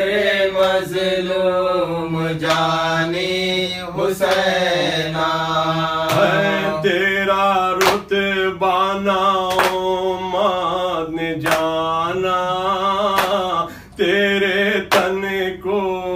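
Men's voices chanting a noha, a mourning lament for Imam Hussain, as a slow, drawn-out melody. Sharp hand slaps keep time about every two seconds.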